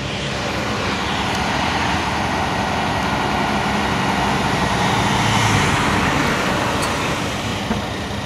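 Ford Transit Custom fire service crew van driving past, its engine and tyre noise swelling to a peak about five seconds in and then easing off, over a steady low hum.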